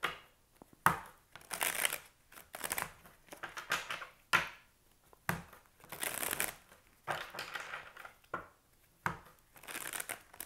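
A deck of tarot cards being shuffled by hand: repeated short swishes of sliding cards, about one or two a second, a few of them with a sharp snap.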